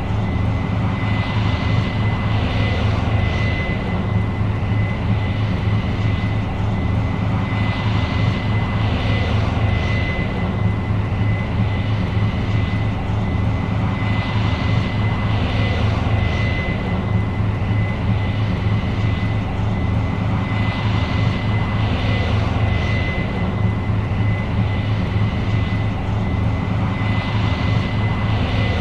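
New Holland CR 7.90 combine running steadily under load while harvesting corn: a deep, constant engine drone with a thin, steady high whine on top, and a hiss that swells and fades every few seconds.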